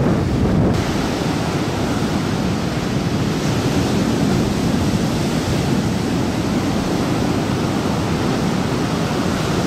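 Heavy storm-driven surf from a hurricane, breaking waves making a steady, continuous rush that turns hissier about a second in.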